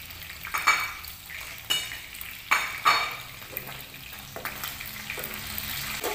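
Oil sizzling steadily in a frying pan as chicken and salted pindang fish fry, with several sharp clinks and clatters of utensils against dishes and pans, the loudest about two and a half to three seconds in.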